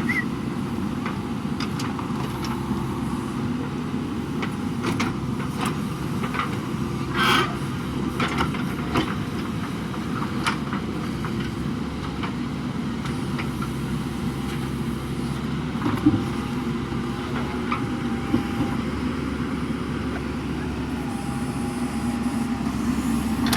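JCB backhoe loader's diesel engine running steadily under work, with a few short knocks over it, the clearest about 7 seconds in and again about 16 seconds in.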